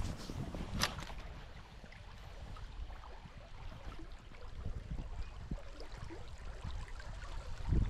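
Fast-flowing river and wind buffeting the microphone, a steady rushing rumble, with one sharp click about a second in.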